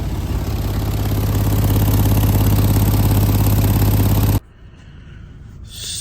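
A car engine running steadily with a fast, even exhaust pulse, growing slightly louder about a second in, then stopping abruptly about four seconds in, leaving faint background noise.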